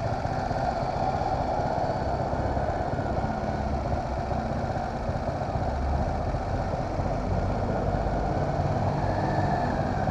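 Motorcycle engine idling steadily while the bike waits at a red light.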